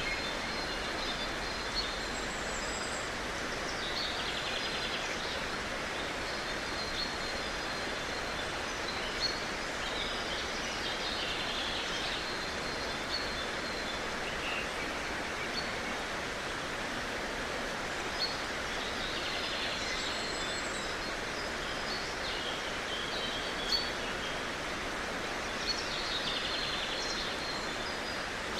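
Steady outdoor rushing noise, like wind or running water, with a songbird singing a short high trill every several seconds.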